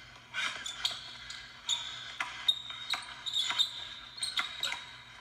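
Basketball dribbled on a hardwood gym floor in a string of irregular bounces, with short high sneaker squeaks in the middle.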